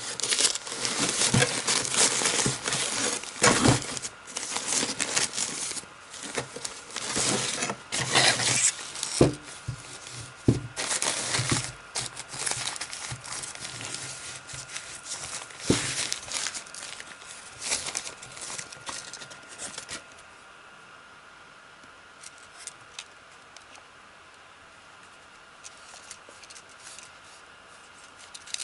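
Crinkling and rustling of the white protective wrapping sheet as a camera body is lifted out of its cardboard box and unwrapped, with sharp crackles throughout. About two-thirds of the way in the rustling stops, leaving only a few small handling clicks over a faint steady whine.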